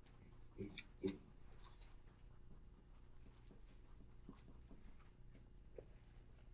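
Dry-erase marker writing on a whiteboard: faint scattered squeaks and ticks of the felt tip on the board, with two louder taps about a second in.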